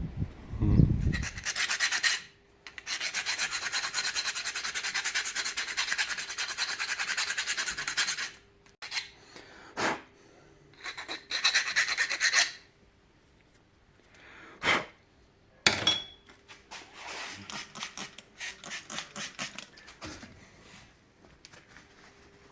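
Rapid back-and-forth rubbing strokes of hand abrasion on a rusty steel rod of a panoramic-roof bracket. A long run of several seconds is followed by shorter runs, with a few sharp clicks between them.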